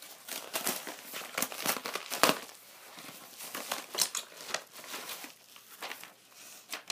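Packaging being handled and torn open: irregular crinkling and rustling with short tearing sounds, the loudest crackle about two seconds in.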